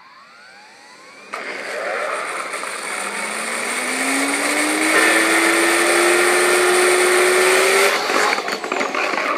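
Vacuum cleaner motor with a CD bolted to its shaft spinning up on a variac. It starts faint with a rising whine, turns suddenly loud with a rush of air, and its pitch climbs slowly as the speed rises. About eight seconds in the whine breaks off into rough rattling and knocking as bolts that have worked loose let the CD wobble off and the motor shake hard.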